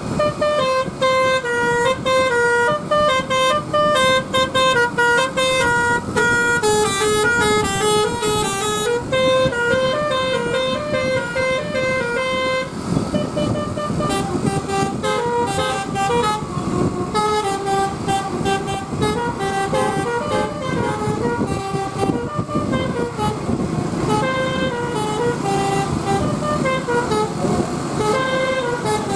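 Basuri telolet bus horn playing a melody of stepped musical tones, one note after another. From about halfway a rumble of bus and road noise grows louder under the tune.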